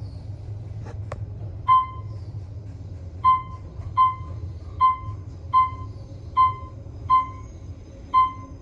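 Elevator car in motion, with a steady low hum from its running. About a second in there is a click. From about two seconds in, a short electronic beep repeats roughly every three-quarters of a second.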